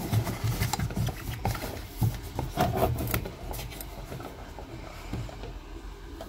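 Hands handling and turning over a plastic electric pencil sharpener on a wooden table: rubbing and scraping with scattered clicks and knocks, busiest in the first three seconds and fading after.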